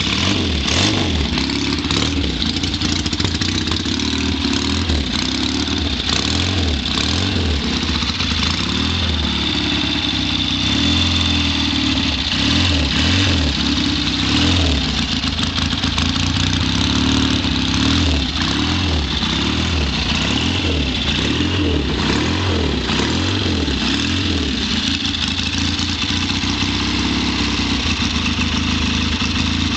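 Triumph flat-track motorcycle engine running at idle, a steady low note with the revs lifting a little now and then.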